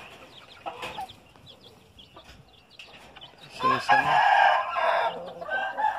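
A gamecock crows once, a loud crow of nearly two seconds starting about three and a half seconds in, after a stretch of only faint scratching and clicks.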